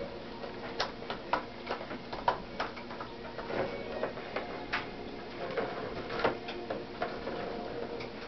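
Plastic ball of a Turbo Scratcher cat toy batted around its circular plastic track, giving irregular clicks and knocks, about a dozen in all, over a faint steady hum.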